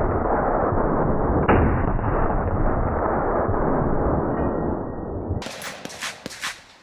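A gunshot about a second and a half in, following another just before, each trailed by a loud rushing echo that slowly fades. A few sharp clicks follow near the end.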